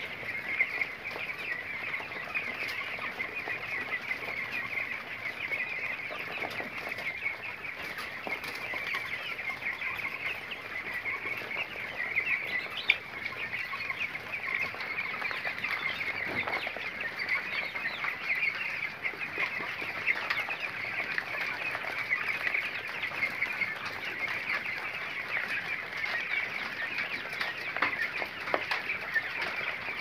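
A flock of caged quail chirping, a dense, unbroken chatter of many short calls, with scattered sharp clicks and one louder knock about halfway through.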